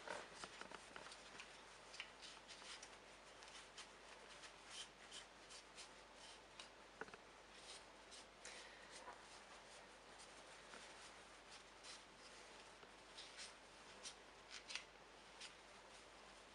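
Faint rustling and scratching of a cloth rag rubbing wet paint off a plastic toy pistol, with many small irregular scuffs and clicks.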